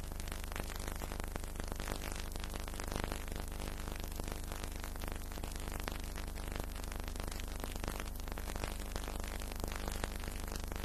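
Steady hiss with dense crackle and a low hum, the background noise of an old archival film soundtrack.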